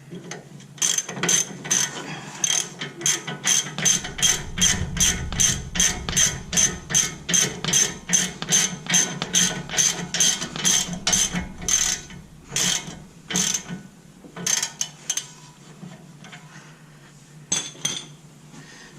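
Hand socket ratchet clicking in quick regular strokes, about two or three a second, as the 22 mm nut on the new outer tie rod end's ball stud is tightened down into the steering knuckle; the strokes slow and stop about two-thirds of the way in, with a few scattered clicks after.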